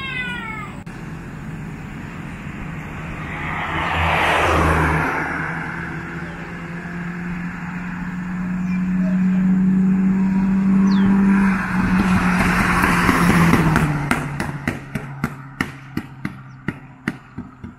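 Cars driving past on the road: one passes about four seconds in, then another approaches with a steady engine note that drops in pitch as it goes by, about thirteen seconds in. Near the end comes a run of sharp clicks, about three a second.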